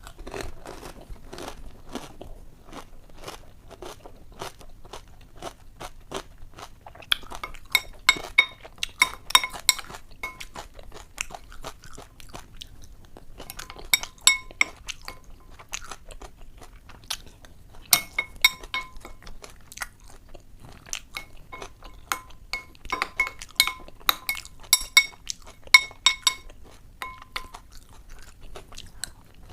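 Close-up chewing and crunching of ghugni puchka (panipuri): crisp puri shells cracking between the teeth in rapid, irregular crunches, with louder clusters of crunches several times.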